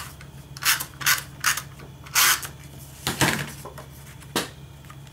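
Cardstock being handled and slid against another sheet of card: about six short papery rustles at irregular intervals, the longest a little after three seconds in.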